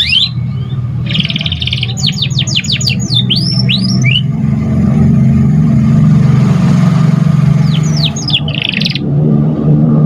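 Domestic canary singing: a buzzy trill, then a quick run of rapidly falling high notes, a pause of a few seconds, and another short burst of falling notes and trill near the end. A steady low hum runs underneath.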